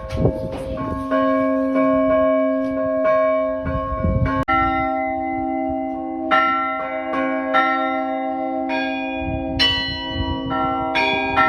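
Orthodox church bells rung by hand: several bells of different pitches struck in a rhythmic pattern about once or twice a second, each strike ringing on over the next, with a deep bell sounding beneath the smaller ones.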